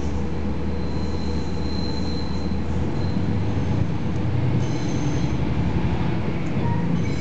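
Inside a KiHa 40 series diesel railcar on the move: a steady rumble of engine and running gear, with thin high metal squeals from the wheels and running gear coming and going, from about a second in, again near five seconds and at the end.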